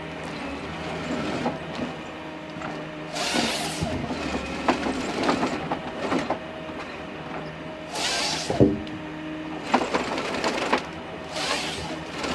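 Forestry harvester working a tree: the machine's engine runs steadily, and three loud, roughly second-long bursts of the harvesting head sawing and stripping wood break over it, with cracking and splintering.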